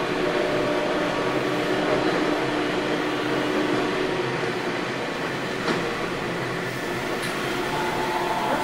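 Sendai City Subway 1000N-series train heard from inside the car while running: a steady rumble of wheels on rail with a motor hum, and a single click about two-thirds of the way through. A higher tone from the drive comes in near the end.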